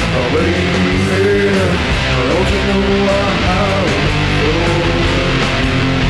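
Rockabilly band playing an instrumental break: electric lead guitar playing bent notes over strummed rhythm guitar, bass and drums.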